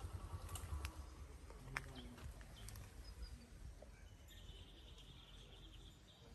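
Faint outdoor ambience: scattered bird chirps and a short high trill about four seconds in, over a faint low pulsing rumble that fades within the first second.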